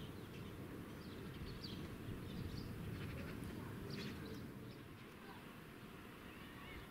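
Outdoor ambience: scattered short chirps from small birds over a steady low rumble.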